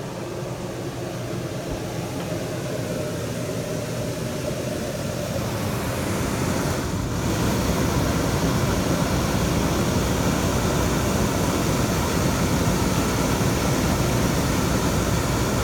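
A 15,000 BTU rooftop RV air conditioner running just after switching on: a steady fan rush and compressor hum that grows louder over the first several seconds, then holds level.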